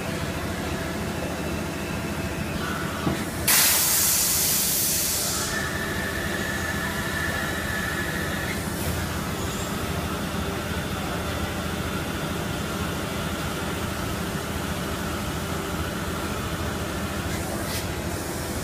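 PET preform injection moulding machine running a cycle with a 32-cavity preform mould, with a steady hum throughout. About three and a half seconds in comes a click and then a sudden loud hiss that fades over about two seconds, followed by a faint steady whine for a few seconds.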